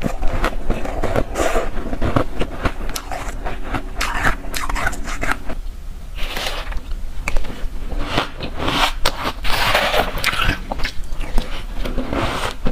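Close-miked crunching and chewing of mouthfuls of powdery frozen ice (freezer frost and flavoured shaved ice): a dense crackle of many small crunches, coming in bursts.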